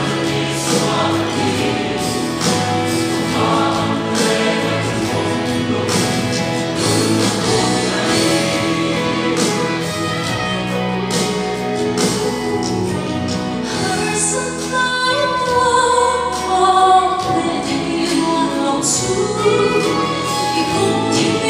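Mixed church choir singing a hymn in several parts, with a woman's solo voice coming forward near the end.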